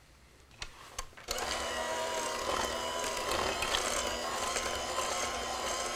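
A couple of light clicks, then an electric hand mixer starts about a second in and runs steadily, its beaters working sour cream into thick cream cheese batter.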